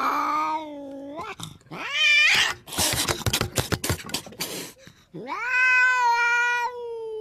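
A cat yowling in long, drawn-out wails: one call trails off about a second in, a short rising one follows, and a long level wail begins about five seconds in. Between them comes a stretch of scratchy noise and clicks.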